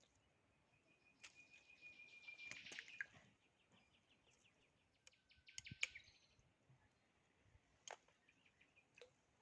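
Faint bird calls: a held high whistle that runs into a rapid trill, then a second short trill about halfway through, with a few sharp clicks between.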